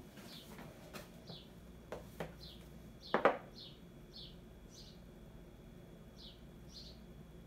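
Books knocking against each other and the tile floor as they are stood upright in a row, with a few light knocks and a louder double knock about three seconds in. A bird's short falling chirp repeats about once a second.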